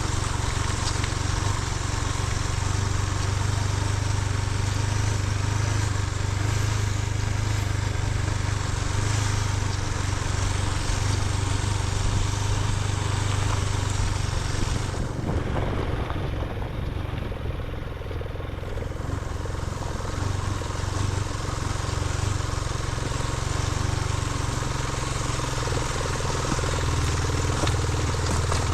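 TNT 250 motorcycle engine running steadily under way, with wind and road noise. About halfway through the hiss eases for a few seconds, then comes back.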